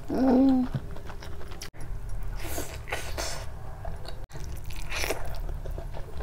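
Close-up chewing of a mouthful of rice and chicken kofta curry eaten by hand: repeated wet mouth and chewing sounds. A short hummed 'mmm' comes right at the start and is the loudest sound.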